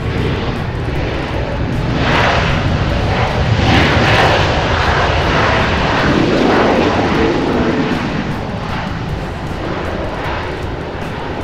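Airbus A320neo's jet engines running loud, swelling to a peak about four seconds in and then easing off.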